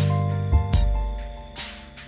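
Instrumental background music: a melody of held notes over deep bass notes, with sharp drum hits at the start and again about half a second in.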